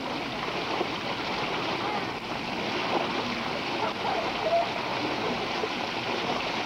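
Fountain water jets spraying steadily and splashing down onto a child standing among them: an even rushing splash of water.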